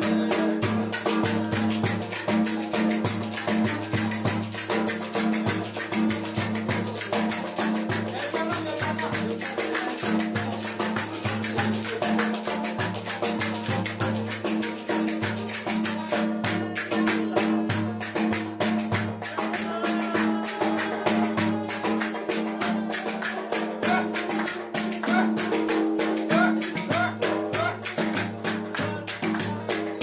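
Fast folk dance music with a held drone underneath and a quick, even rhythm running over it.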